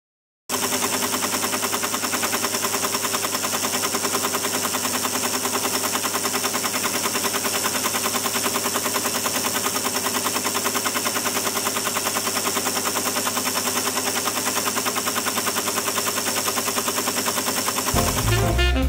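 Teletype paper tape reader starting up about half a second in and clattering at a fast, even rhythm as it steps the repaired punched tape through and reads it. Jazz music comes in near the end.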